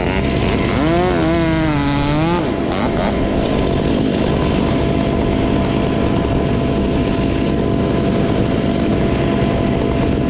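A chainsaw revving up and down for about two and a half seconds, then dropping out. Under it an engine runs steadily throughout.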